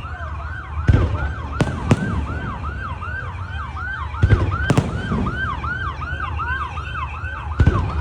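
A siren yelping in a fast, even rise and fall about three times a second, with several fireworks bursts banging over it (near 1, 2, 4.5 and 7.7 s) and a low rumble beneath.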